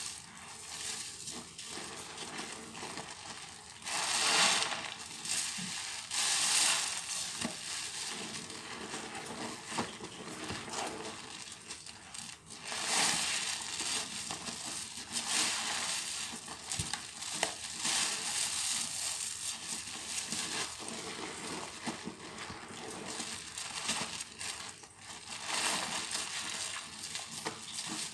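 Sudsy sponges squeezed by hand in soapy water: wet squelching and the fizzing crackle of foam, swelling with each squeeze every few seconds.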